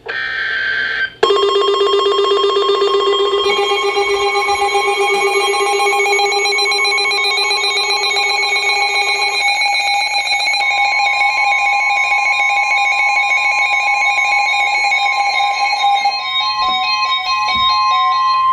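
A brief burst of electronic data-like tones, then sustained layered electronic tones that sound like synthesizer music, the notes changing every few seconds. A steady high tone a little above 1 kHz comes in about halfway and holds, and short notes step up and down near the end.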